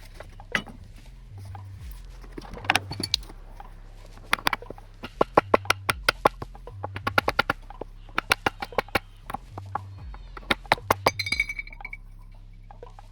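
Metal clinking and tapping from hand work on a garden rake: quick runs of sharp clicks and knocks. A short ringing metallic tone sounds near the end.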